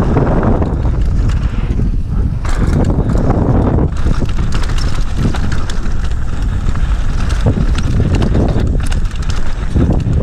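Downhill mountain bike running fast over a dirt trail: a steady rumble of wind on the microphone and tyres on dirt, with a constant clatter of short knocks and rattles as the bike goes over bumps.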